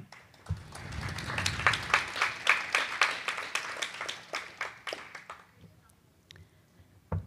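Audience applauding: many quick claps that start about half a second in, swell, and die away by about five seconds in. A short low thump follows near the end.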